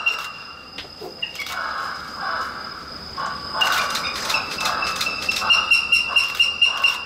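A flock of crows cawing, many harsh calls overlapping and thickening about a second and a half in. A steady high-pitched pulsing, about four beeps a second, drops out at the start and returns near the end.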